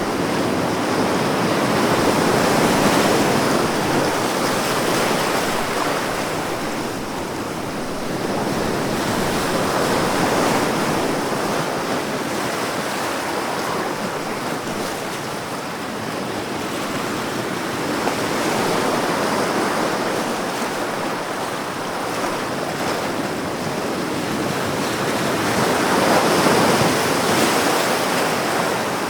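Ocean surf: a steady rushing wash of waves that swells and eases about every seven to eight seconds, four swells in all.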